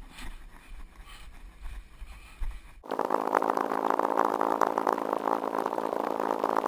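Low wind and handling rumble on a chest-mounted action camera's microphone, with faint footfalls. About three seconds in, it switches abruptly to a loud, buzzy drone full of rapid ticks: running sounds from a fast-forwarded stretch of footage, played sped up. The drone cuts off suddenly near the end.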